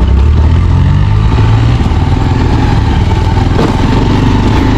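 Motorcycle engine running under way on a dirt trail, its pitch rising a little over the first second or so and then holding steady.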